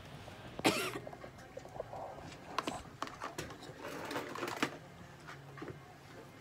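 Handling noises at a veterinary exam table: a sharp rustle about half a second in, then scattered clicks and taps as treatment supplies are handled, over a steady low hum.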